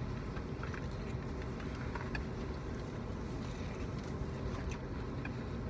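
Steady low hum of a car interior, with a few faint small clicks.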